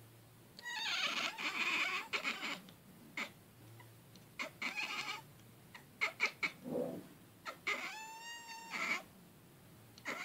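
A domestic cat chattering in spurts: bursts of rapid clicks and squeaky, broken calls. About eight seconds in comes one clearer, pitched chirping call.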